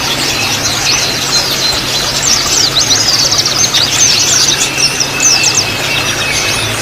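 White-eyes (pleci) twittering: a fast, dense run of high, quick falling chirps, the rapid 'ngriwik' chatter, over a thin steady high tone and a low hum.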